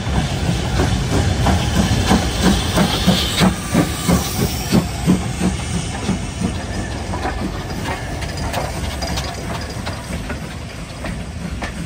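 Double-headed BR Standard Class 5 4-6-0 steam locomotives working slowly past, with rhythmic exhaust chuffs of about three a second over a steady hiss of steam. The chuffs are strongest a few seconds in and then grow weaker.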